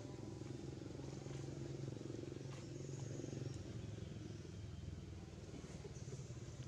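Steady low engine hum with a few faint clicks.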